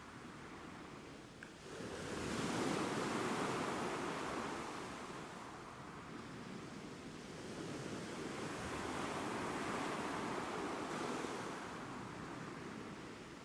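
Ocean waves washing ashore, a steady hiss that swells and fades as each wave comes in, with a surge about two seconds in and another later on.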